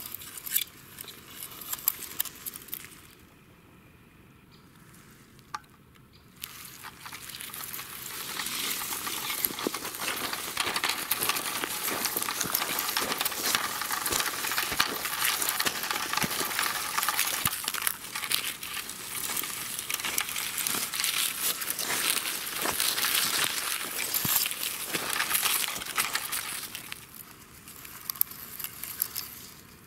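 Dry leaves and forest litter crinkling and crackling as a toy car is pushed through them by hand: a dense run of small clicks and rustles from about six seconds in until near the end, with only scattered clicks before and after.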